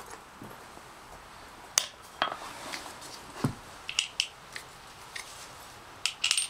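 Small metal parts, a washer and a nut, clinking as they are handled and set down, with several sharp irregular clicks. The loudest come about two seconds in and near the end.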